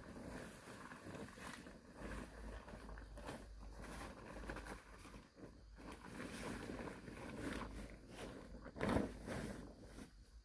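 Irregular rustling, scraping and light knocks, like handling or moving about, over a low background noise.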